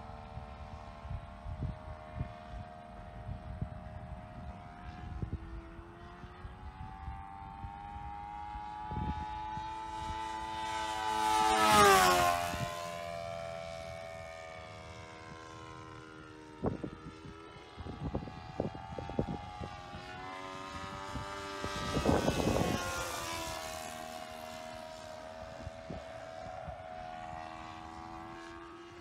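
Sportster 60 RC model airplane's engine and propeller droning as it flies around. It makes two close passes, about twelve seconds in and again near the end, each louder with the pitch falling sharply as it goes by. The first pass is the loudest.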